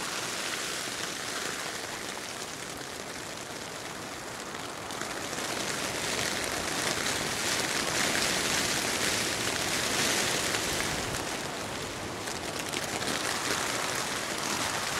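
Heavy rain falling steadily, growing louder from about five seconds in.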